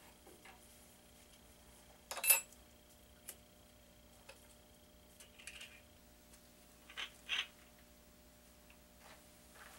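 Scattered light metal clinks and knocks of tools and parts being handled on a metal lathe. The sharpest, ringing clink comes about two seconds in, and two more close together near seven seconds.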